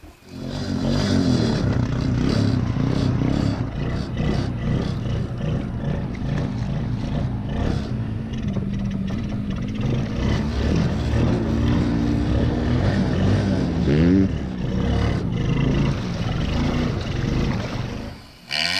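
ATV engine running close to the microphone, its pitch wavering, with a few quick revs up and down past the middle.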